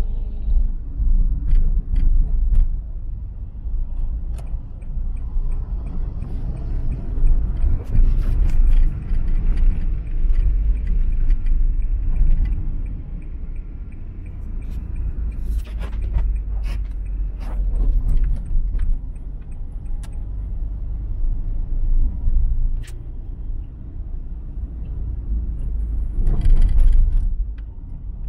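Steady low road rumble of a vehicle driving on a wet, rainy road, with scattered sharp clicks and knocks. Louder rushing swells come about halfway through and again near the end.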